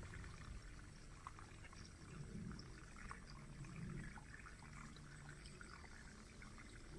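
Faint trickle of water, with a few light ticks scattered through it.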